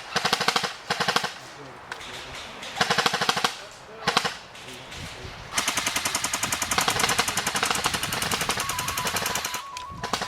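Airsoft electric guns firing on full auto, a rapid, even rattle of shots: several short bursts in the first few seconds, then one long burst of about four seconds.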